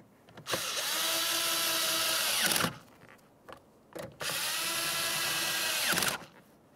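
Cordless electric screwdriver with a 7mm socket running twice, about two seconds each, driving in two 7mm mounting bolts. Each run ends with the motor's whine falling as it slows to a stop, and there are a few small clicks between the two runs.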